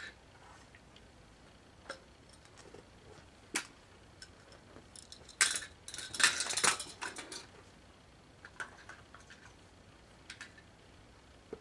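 Small plastic toys clicking and clattering as a toddler handles them: scattered light taps, with a stretch of louder rattling clatter about halfway through.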